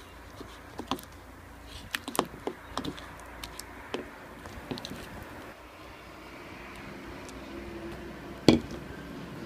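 Slime-making handling sounds: scattered light clicks and taps of utensils and containers, with one louder knock about eight and a half seconds in, over a steady low hum.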